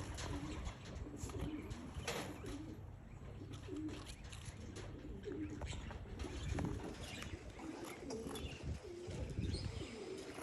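Domestic pigeons cooing repeatedly in a loft, over a low rumble.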